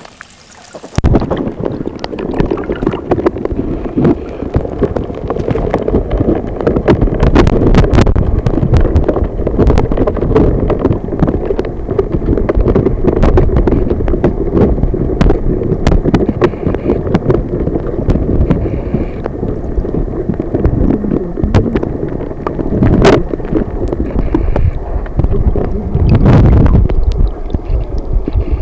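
Muffled rumble of flowing stream water heard through an underwater camera's housing, with scattered sharp clicks and knocks. It starts about a second in.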